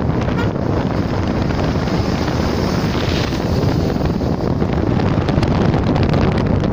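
Wind rushing over the microphone of a moving vehicle, mixed with steady road and engine noise as heavy trucks pass close by.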